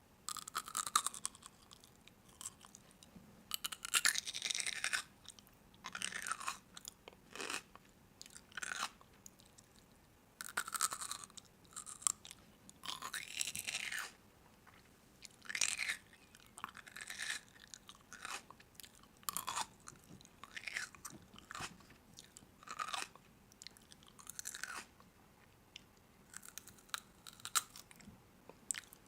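Crunchy food being bitten and chewed close to the microphone, in irregular crunching bursts every second or two.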